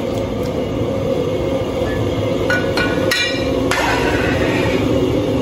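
A long metal ladle clinking against a large iron wok several times in quick succession, about halfway through, as tofu is stirred into broth, over a steady rushing noise.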